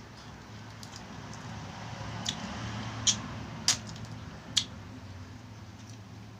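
Eating sounds: four sharp clicks and cracks spread over a couple of seconds, over a low steady hum.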